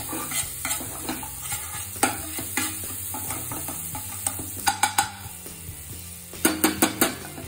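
Metal spatula stirring and scraping a turmeric, red chilli and garam masala paste sizzling in oil in a stainless steel pan, the masala being fried on low heat until the oil separates. Sharp scrapes and taps of the spatula on the pan stand out over the sizzle, in a quick cluster about five seconds in and again near the end.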